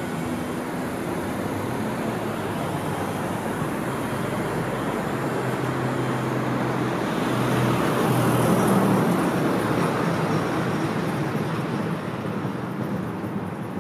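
Street traffic: a motor vehicle passes along the road, its engine hum and tyre noise building to a peak about eight seconds in, then fading back into the general traffic hiss.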